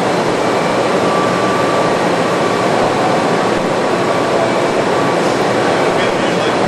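Steady, loud rushing hum of the shuttle processing hangar's ambient machinery and air handling, even throughout, with a faint high tone coming and going.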